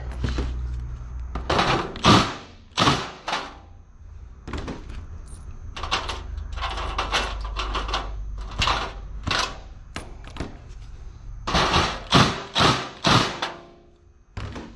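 The sheet-metal housing of a wall heater knocking and scraping against a wooden frame as it is worked into place: irregular clusters of short knocks and scrapes, densest near the end. A low steady hum sits underneath and fades about eleven seconds in.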